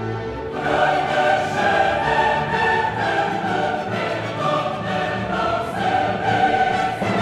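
Amharic gospel worship song performed live: many voices singing together over a full band, the music filling out about half a second in.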